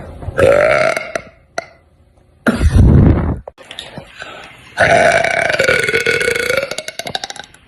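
Three loud burps: a short one, a deep one about two and a half seconds in, and a long drawn-out one of nearly three seconds.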